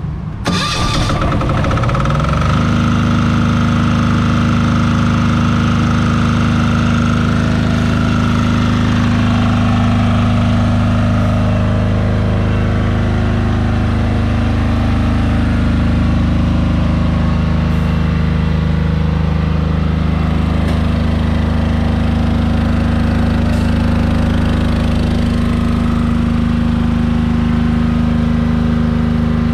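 Powerzone PDG 8700SS soundproofed diesel generator starting: a brief burst as it is cranked, then the engine catches and its speed rises for about two seconds before it settles into a steady run. It is loud, about 90 dB on a phone sound meter held close.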